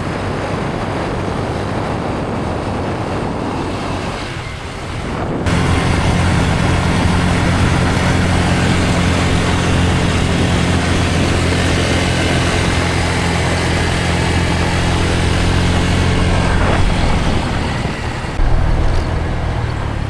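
Motor scooter engine running steadily while riding, with wind on the microphone. About five seconds in the sound turns abruptly into a louder, steady engine hum.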